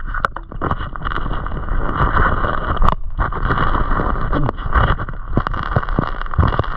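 Heard underwater: a gloved hand digging through creek-bed gravel and fanning up silt, with many small clicks and knocks of stones over a steady rush of moving water.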